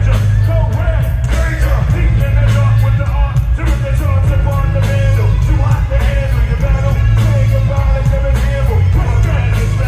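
Live hip-hop performance through an arena sound system: a loud, bass-heavy beat with voices rapping and shouting over it.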